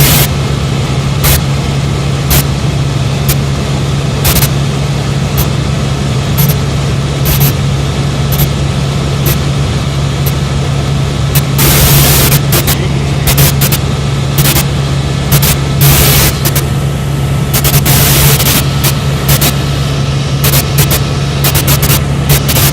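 Helicopter in flight heard from on board: a loud, steady drone of rotor and turbine with a strong low hum, with short gusts of rushing noise now and then.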